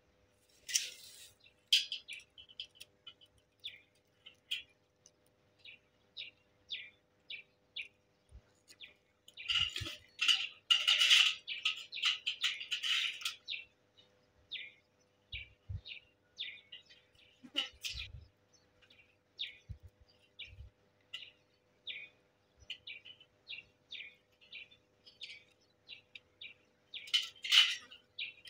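Small birds chirping: many short, high calls, with a denser run of song about ten seconds in, and a few dull low knocks along the way.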